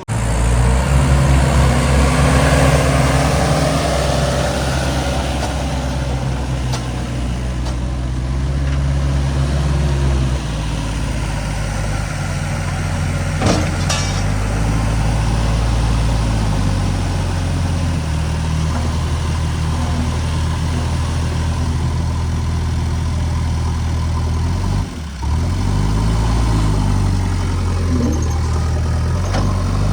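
Diesel engine of heavy earthmoving or farm machinery running steadily, its pitch rising and falling several times as the load and throttle change. There is a brief break about 25 seconds in.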